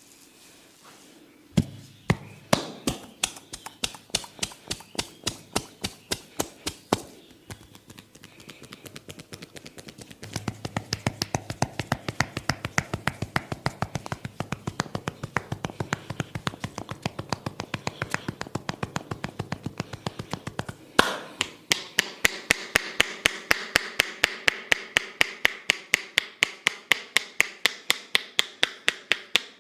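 A barber's hands tapping and slapping rhythmically on a client's head in a percussive head massage, a few quick strikes a second. The strikes start sparse and uneven, settle into a steady rhythm, and after one louder slap about twenty seconds in, come sharper and more even.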